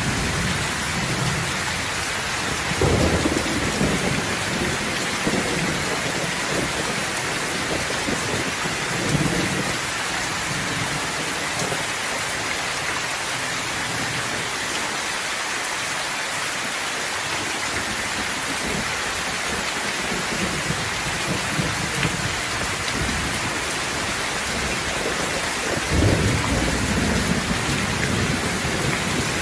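Steady rain falling, with rolls of thunder rumbling low under it: one about three seconds in, another near nine seconds, and the loudest near the end.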